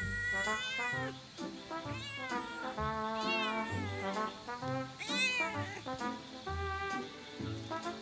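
Domestic cat meowing about four times, each meow rising and then falling in pitch, over background music with a steady beat.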